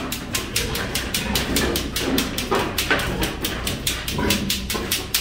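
Sows' hooves clicking on a slatted concrete floor as they walk, several steps a second, with a few short pig grunts.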